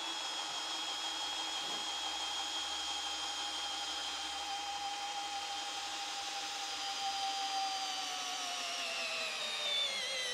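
Makita cordless hammer drill running under heavy load as a long bit bores into a log, its motor whining at a steady pitch. Over the last couple of seconds the whine slides down as the drill bogs down and fails to finish the hole.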